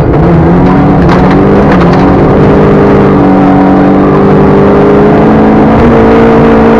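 Rally car's engine running hard, heard loud from inside the cabin while the car is driven at speed on gravel. The engine note holds fairly steady and steps up in pitch near the end, with a few sharp clicks about a second in.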